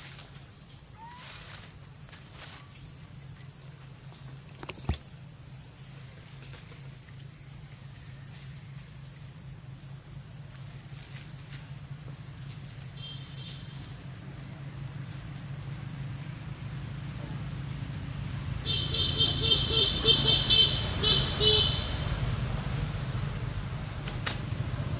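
Outdoor ambience with a steady high insect drone. A low engine rumble builds in the background toward the end. From about three-quarters of the way in, a loud, rapidly pulsing call lasts for about three seconds.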